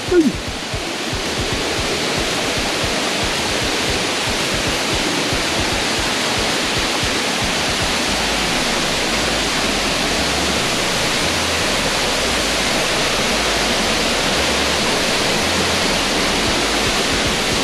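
Waterfall's falling water rushing loud and steady, with no change in its level.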